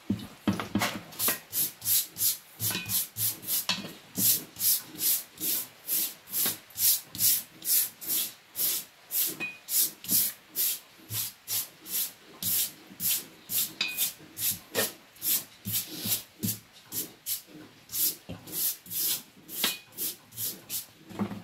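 The aluminium cylinder head of a Toyota 2TR engine being rubbed back and forth by hand on abrasive paper over a flat surface, a steady rhythm of rasping strokes about two a second. This is manual refacing (lapping) of the head's gasket face to grind down the high spots until one side, still low, is flat.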